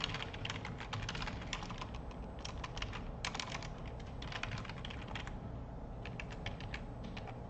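Typing on a computer keyboard: quick runs of keystrokes, a brief pause about five seconds in, then slower, sparser keystrokes.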